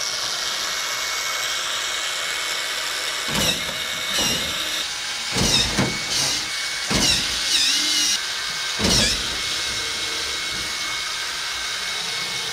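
Electric motors of a humanoid robot whining in short glides that dip and rise as its joints move, over a steady hiss and high tone, with several dull thumps.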